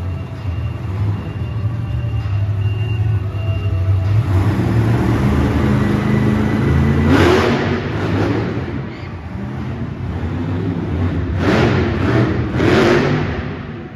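Bigfoot monster truck's engine running and revving, with a loud throttle surge about halfway through and two more near the end.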